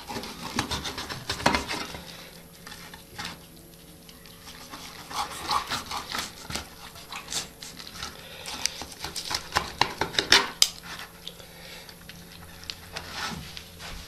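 A knife and fork cutting through a baked chicken breast in a metal baking tray: irregular clicks and scrapes of the blade and tines against the pan, coming in several runs with quieter pauses between.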